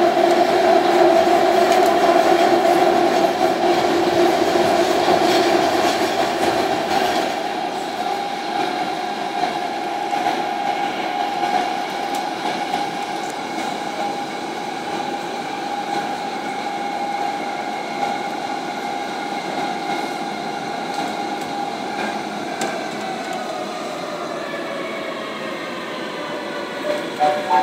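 Madrid Metro train running through a tunnel: a steady whine from the traction motors over wheel-on-rail noise. In the last few seconds the motor tones fall in pitch as the train slows.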